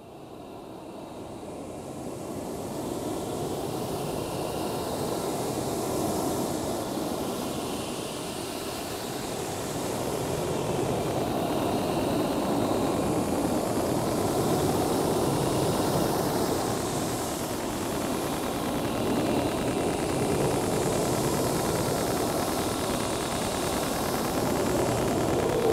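Electronic noise drone music: a dense rumbling wash with hiss on top, fading up over the first few seconds and then holding steady.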